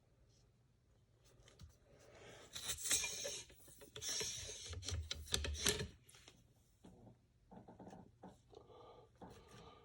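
Rubbing and scraping strokes of a cleaning rod being worked through the bore of a CVA Wolf muzzleloader's barrel. The strokes are loudest in the middle and fade to fainter scuffs near the end.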